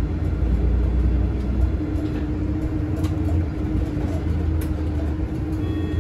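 Solaris city bus under way, heard from inside near the front: a steady low rumble of drivetrain and road, with a steady hum that grows stronger about two seconds in.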